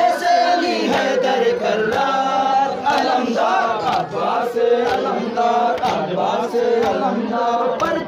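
Men chanting a noha, a Shia Muharram mourning lament: a lead voice on a microphone with crowd voices chanting along.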